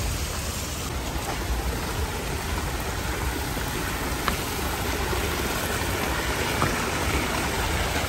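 Steady rush of water from a small creek cascading over rocks, with a low rumble beneath it.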